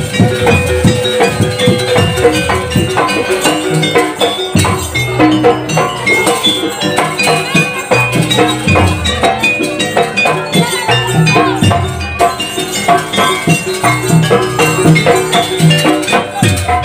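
Live jaranan gamelan music: drums, gongs and pitched bronze percussion playing a busy, driving rhythm.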